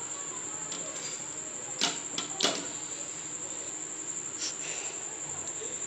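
A few sharp knocks and clatters of a spatula against a flat frying pan as a toasted bread slice is lifted off it. A steady high-pitched trill runs throughout.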